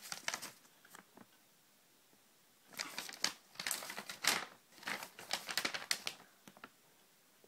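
A sheet of paper, the order's packing slip, crinkling as it is unfolded and handled. There is a short spell of crackling at the start, then a pause of about two seconds, then a longer run of crackles.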